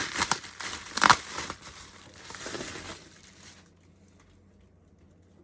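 Plastic packaging crinkling and rustling as it is handled, with one sharp, louder crackle about a second in; the rustling stops after about three and a half seconds.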